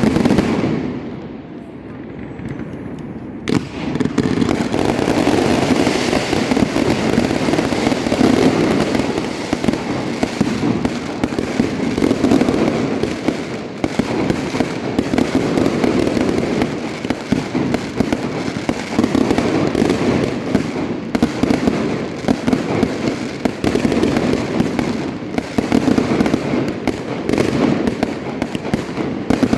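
Castillo aerial fireworks display: a bang at the start, then from about three and a half seconds a dense, continuous barrage of rapid explosions and crackle that swells and eases in waves without stopping.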